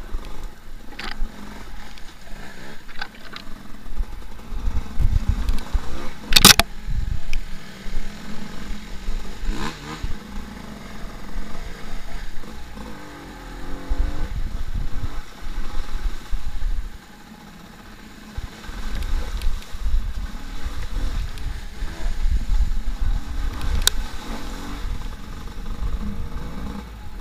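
Enduro motorcycle engine revving and easing off again and again as the bike rides a rough trail, with a couple of sharp knocks from the bike going over bumps.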